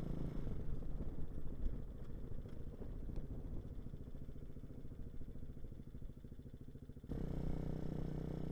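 Hawk 250 motorcycle engine running under way. For most of the stretch the engine note sinks to a lower, rougher putter that slowly fades, and about seven seconds in the steady engine note comes back abruptly.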